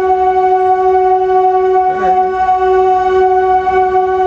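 Electric MEMU train's horn sounding one long, steady blast as the train pulls out of the station.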